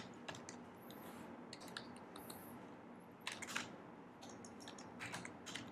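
Faint, irregular computer-keyboard typing clicks, with a small burst of louder keystrokes a little over three seconds in and another near the end.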